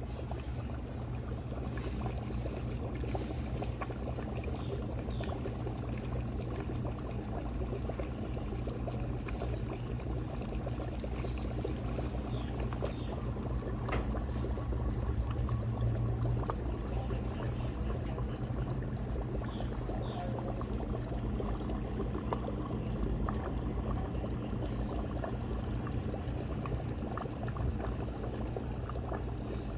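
Water in a guppy tub bubbling and splashing steadily, with a low hum underneath.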